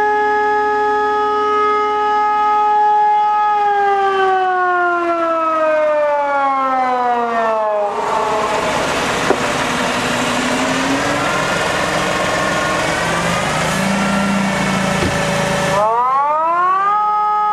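Wandel & Goltermann electronic siren sounding the fire-alarm signal. A steady multi-tone wail slides down in pitch, like a motor siren winding down, and a stretch of loud hiss follows in the break. Near the end the tone rises quickly back up to the steady wail.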